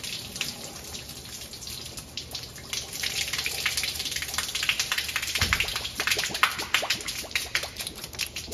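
Water spray hitting and spattering off a semi truck's steel frame, hoses and fittings, heaviest in the middle stretch.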